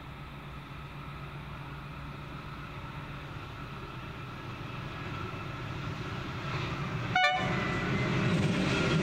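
Pacific National NR-class diesel-electric locomotives hauling a long freight train, their engine rumble growing steadily louder as the train approaches. About seven seconds in there is a brief sharp toot of the horn.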